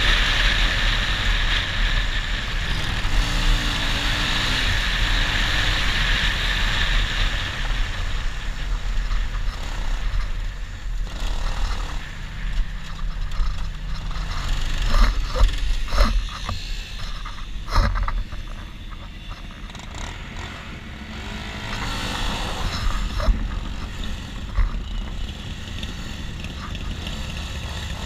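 Motorcycle engine running while riding, with wind rushing over the camera, loud for the first several seconds and easing as the bike slows. A few sharp knocks come about halfway through.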